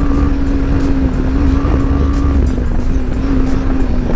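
BMW G310GS single-cylinder engine running at a steady, near-constant speed while the bike is ridden over grass and dirt, with heavy low wind rumble on the microphone.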